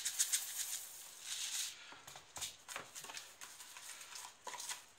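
Bird seed mix poured from a glass jar into a plastic tub, a dry hiss and rattle of loose seed, with scattered clicks and taps as the jar and seed are handled and the seed is worked into the sticky batter.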